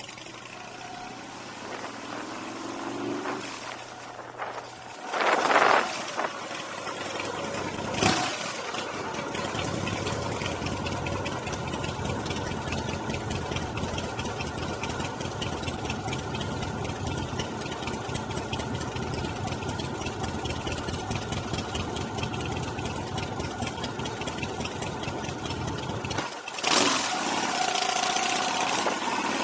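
Big Dog K9 clone chopper's V-twin engine running while the bike is ridden. Two brief louder swells come in the first several seconds, then it settles into a steady drone, and it changes again near the end.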